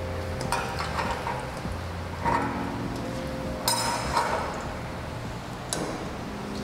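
A metal perforated spoon and wire strainer clinking and knocking against a steel kadai while fried potatoes are lifted out of hot oil: about six sharp, ringing clinks, irregularly spaced.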